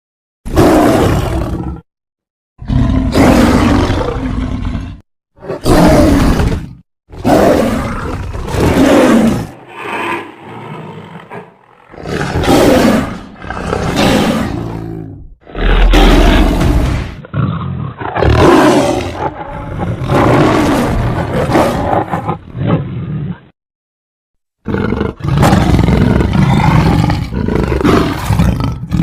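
Creature roar sound effects for the tiger-like alien Battle Beast: a dozen or so separate loud roars, one after another, with short silent gaps between them.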